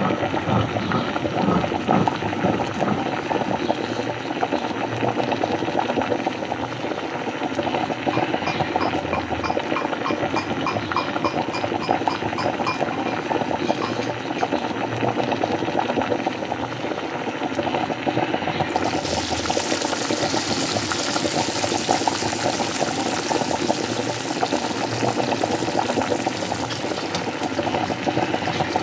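Liquid bubbling and gurgling steadily, with a high hiss joining in about two-thirds of the way through.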